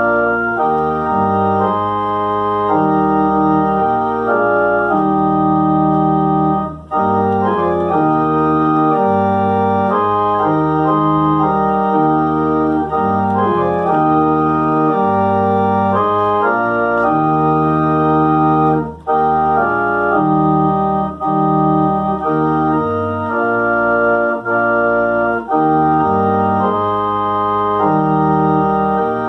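Organ playing slow sustained chords that change about once a second, pausing briefly twice.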